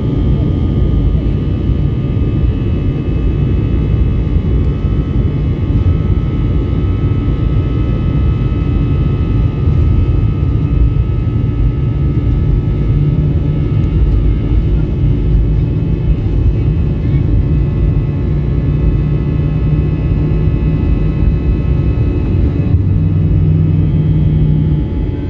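Airbus A320-214's CFM56 turbofan engines at takeoff power during the takeoff roll, heard from inside the cabin: a loud, steady low rumble with several steady engine whines above it. The rumble dips briefly near the end.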